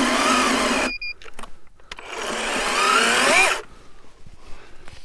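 Electric chainsaw cutting small firewood in two runs: the first stops about a second in, and the second, from about two seconds in, rises in pitch before cutting off, followed by faint knocks.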